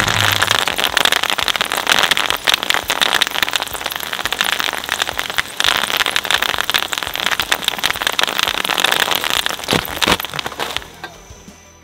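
Bubble wrap bursting in the cutters of an electric twin-shaft shredder: a dense, rapid crackle of popping bubbles and tearing plastic, which stops suddenly near the end.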